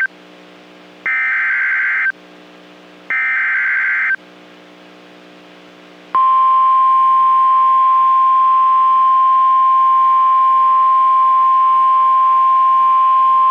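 NOAA Weather Radio Emergency Alert System broadcast: two roughly one-second screeching digital SAME header bursts, about a second apart. About 6 s in, the steady 1050 Hz warning alarm tone begins. Together they signal that a new warning, here a severe thunderstorm warning, is being issued.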